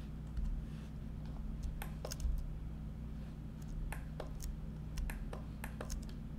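Computer keyboard and mouse clicking: about a dozen sharp clicks at irregular intervals, bunched in the second half, over a steady low hum.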